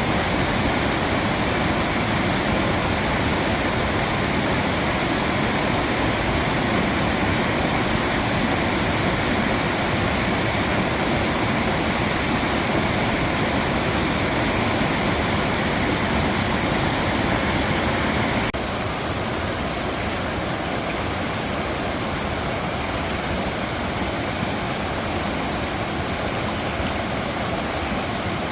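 Mountain valley stream rushing steadily. About two-thirds of the way through it drops suddenly to a slightly quieter, duller rush.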